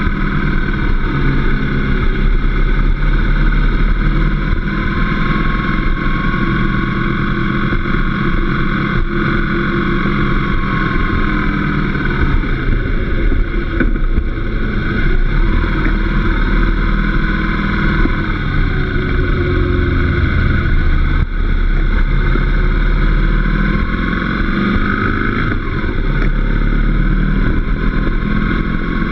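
Motorcycle engine running while riding at town speeds, its pitch rising and falling as the rider slows for roundabouts and accelerates away.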